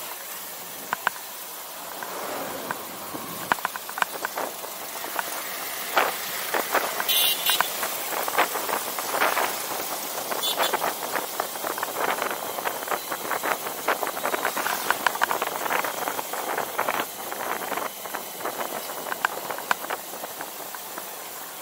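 Road noise heard from a small motorbike on the move through traffic: a steady rushing hiss with many short clicks and rattles throughout.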